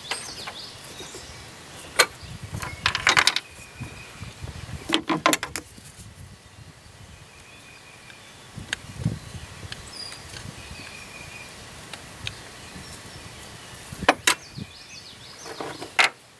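Scattered sharp clicks and clinks of hand work on a car's air-conditioning line fitting being pressed and threaded together over its new O-ring. A few of them come in quick clusters.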